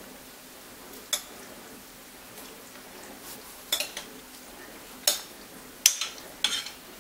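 A metal utensil clinking and scraping against a glass bowl while chocolate pudding with banana is scooped out. There are about five sharp clinks, spread irregularly.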